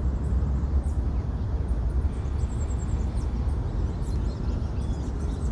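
Steady low outdoor rumble of background noise, with a few faint, brief bird chirps.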